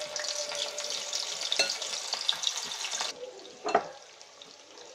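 Batter-coated prawns deep-frying in hot oil in a wok, a dense crackling sizzle. About three seconds in, the sizzle drops abruptly to a quieter level, and a single sharp knock follows shortly after.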